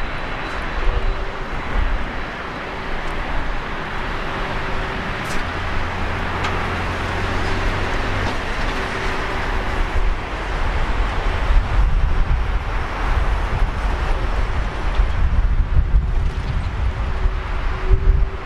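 Twin jet engines of a Boeing 767-300F freighter running as the airliner rolls along the runway for takeoff: a broad, even rush of engine noise over a low rumble, with a faint steady tone through it, getting a little louder in the second half.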